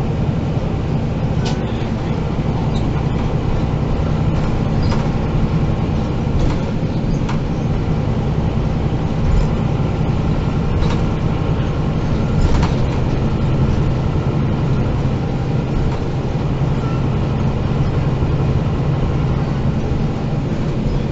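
MAN NG 313 articulated city bus heard from inside the passenger cabin: its diesel engine runs with a steady low hum, and the body gives occasional short knocks and rattles.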